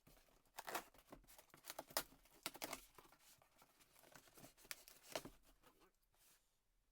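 Cardboard parcel being opened by hand: faint, scattered strokes of tape and cardboard tearing and scraping.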